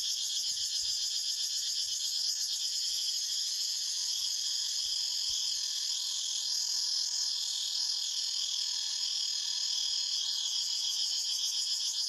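Chorus of cicadas buzzing steadily, a continuous high-pitched drone with a fast fluttering texture.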